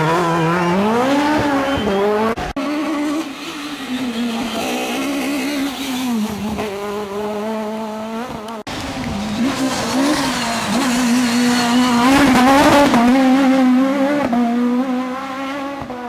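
Peugeot 306 Maxi rally car's four-cylinder engine run hard at high revs, the pitch dropping and climbing with gear changes and throttle, then held high and wavering. The sound breaks off abruptly twice, about two and a half and eight and a half seconds in.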